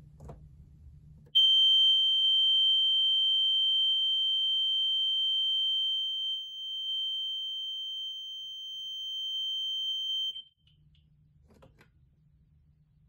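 Gentex GX90S fire alarm mini horn sounding one steady, very high-pitched tone for about nine seconds, starting about a second and a half in and cutting off suddenly.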